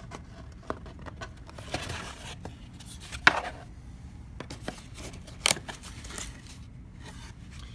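Camera box and packaging being handled by hand: scattered light rustles and clicks, with two sharper knocks about three seconds and five and a half seconds in.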